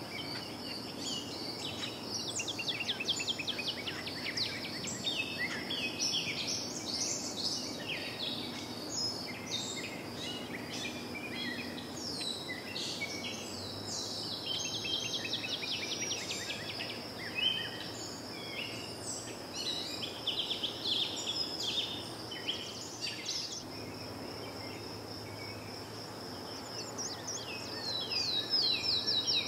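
Ambience of many songbirds chirping, in quick series of short falling high notes, over a steady high insect trill and a faint low hum. The chirping is busiest near the end.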